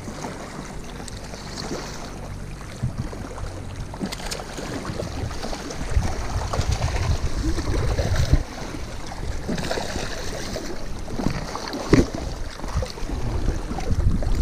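Wind buffeting the microphone over lake water lapping and splashing at the shoreline as a hooked bass is fought to the bank, with a few sharp knocks, the loudest about eight and twelve seconds in.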